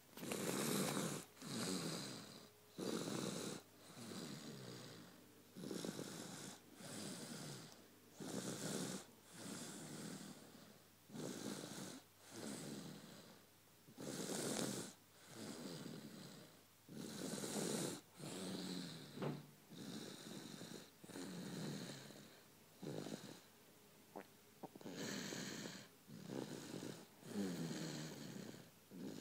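A sleeping person snoring loudly in a steady rhythm, a pair of rasping snores about every three seconds.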